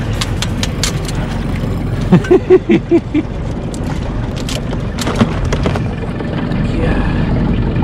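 Blue crabs and metal crab tongs clicking and clattering as crabs are handled over a tub and baskets in a boat, with a steady low hum of the boat's motor underneath. About two seconds in there is a quick run of six short pitched sounds.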